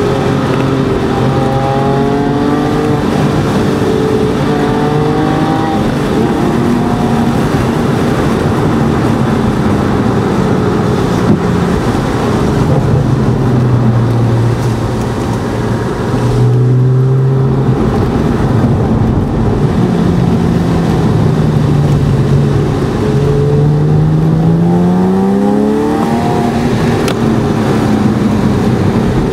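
Porsche flat-six engine heard from inside the cabin, revs climbing and falling with throttle and gear changes: the pitch drops around the middle, then climbs for several seconds and falls away at a shift near the end. Steady tyre hiss from the wet road runs underneath.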